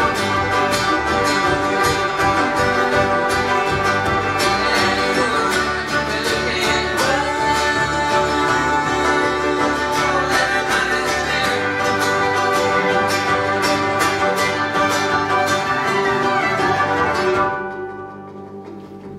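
Acoustic string band playing an instrumental passage: banjo, strummed acoustic guitar, upright bass and fiddle in a steady bluegrass-style rhythm. Near the end the music drops suddenly to a much quieter passage.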